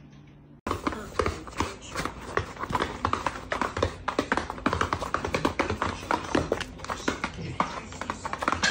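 A dog's paws and claws clattering in quick, irregular taps as it jumps and scrabbles about. The tapping starts abruptly about half a second in, after a short quiet moment.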